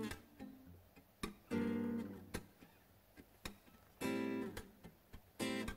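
Background music: an acoustic guitar strumming short chords with pauses between them, and a few sharp clicks in the gaps.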